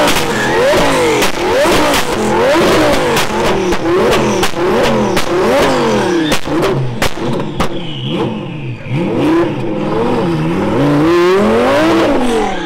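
Car engine revved hard and repeatedly in quick throttle blips, its pitch sweeping up and back down roughly once or twice a second, with sharp cracks through the revving. The last few revs, near the end, are slower and climb higher before the engine drops back suddenly.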